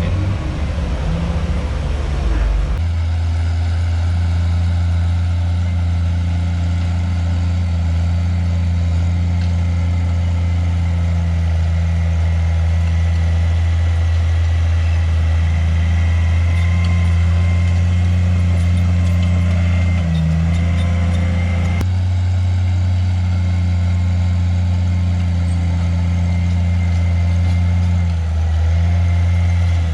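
Diesel engine of a tracked earthmover running steadily under load while it packs and tracks in a steep fill slope, a low drone that shifts about three seconds in and dips briefly twice later on.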